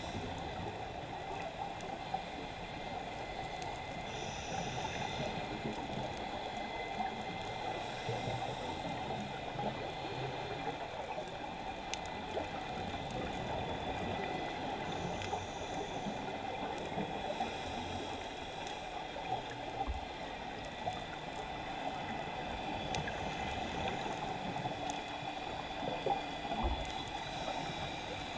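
Underwater ambience heard through a camera's housing: a steady muffled rush with a thin steady whine above it and scattered faint clicks.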